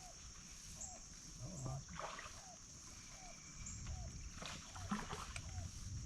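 Steady high drone of insects, with a short low call repeating every half second or so and a few light knocks and splashes around the boat.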